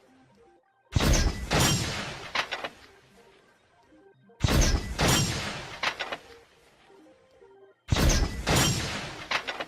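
Emergency alert alarm sound: three loud crashing bursts about three and a half seconds apart, each with a few further hits that fade away, with faint short low notes playing between them.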